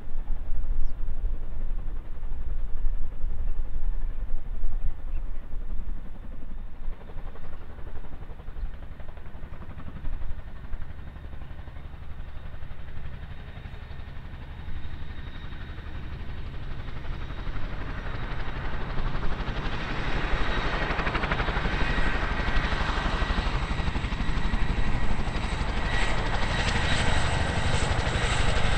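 Boeing CH-47 Chinook tandem-rotor helicopters running, with a heavy low rotor beat and the whine of their T55 turboshaft engines. Past the middle, the turbine whine and rushing rotor noise grow steadily louder and brighter.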